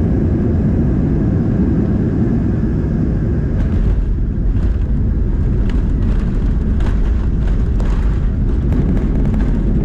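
Boeing 737-200's Pratt & Whitney JT8D turbofan engines in reverse thrust during the landing rollout, heard from inside the cabin as a loud, steady low rumble with a few light clicks and rattles.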